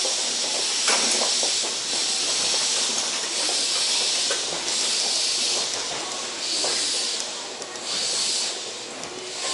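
Compressed air hissing in stretches of half a second to a second from a stopped electric train, with scattered clicks and knocks.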